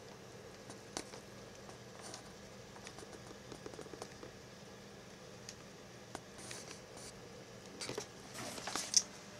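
Faint steady hum of a running desktop computer, with scattered light clicks and rustles and one sharper click near the end.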